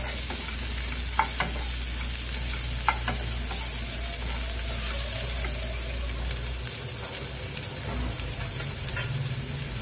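Chopped onions sizzling in hot oil in a nonstick frying pan, stirred with a wooden spatula that gives a few light taps against the pan in the first three seconds, then a steady sizzle.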